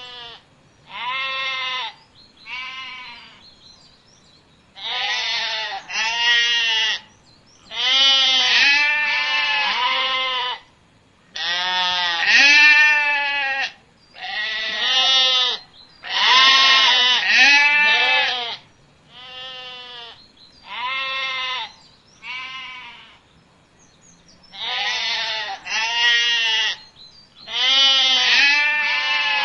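Goats bleating: a long series of separate quavering calls, each about a second long, some in quick pairs, with short gaps between.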